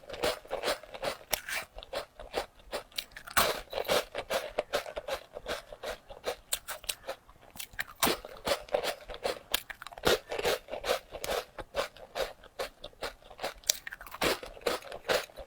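Close-miked crunching and chewing of crispy coconut egg rolls: a rapid run of sharp, crackling crunches as the brittle rolls are bitten and chewed.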